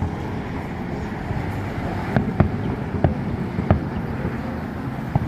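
Fireworks display heard from a distance: about half a dozen sharp firework bangs at irregular intervals over a steady low rumble.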